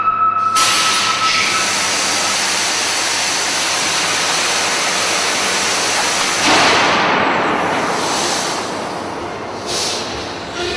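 Loud steady hiss and rush from the Burmeister & Wain DM-884 WS eight-cylinder double-acting diesel engine as it is worked from its control stand. A steady warning-horn tone sounds over it and stops about two seconds in. The rush grows fuller about six and a half seconds in.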